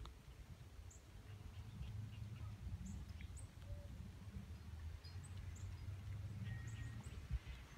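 Faint outdoor ambience: a steady low wind rumble with scattered short, high bird chirps, about eight in all.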